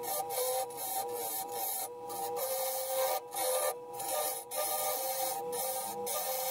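Wood lathe running with a steady motor whine while a hand-held turning tool cuts the spinning wood, a dense hissing scrape that stops for a moment about half a dozen times as the tool comes off the wood.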